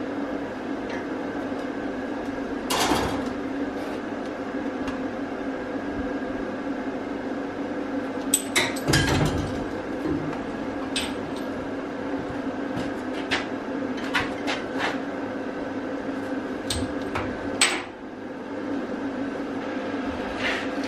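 Steel brackets and angle iron knocking and clanking now and then as they are handled and set in a bench vise, over a steady machine hum.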